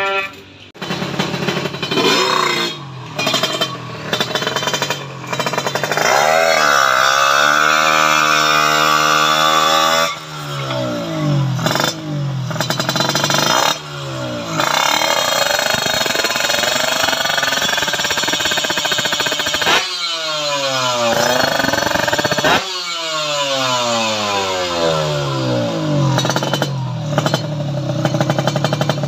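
Kawasaki Ninja motorcycle engine being revved repeatedly while standing, its pitch climbing and dropping again and again. There are quick throttle blips, and twice, a little before two-thirds of the way in, the revs fall off sharply.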